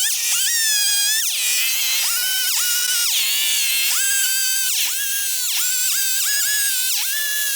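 Chainsaw cutting wood, its engine pitch dropping as it bogs into the cut and climbing back, again and again about once a second, while a tabletop slab is rounded off.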